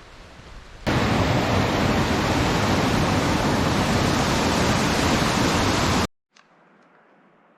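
A loud, steady rushing noise that cuts in sharply about a second in and stops abruptly near six seconds, leaving a faint hiss.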